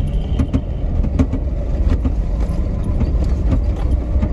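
Steady low rumble of a vehicle driving over a rough gravel road, with scattered short knocks and rattles. A faint high squeak sounds in the first second.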